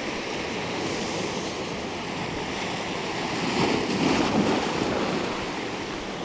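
Sea surf breaking and washing over rocks, with a wave surging louder about three and a half seconds in and then ebbing.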